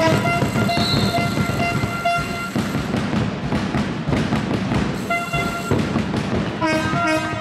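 Fan horns tooting in short repeated notes over crowd noise and clapping in a sports hall. The horns break off for about two and a half seconds in the middle, leaving the clapping and crowd noise, and start again near the end.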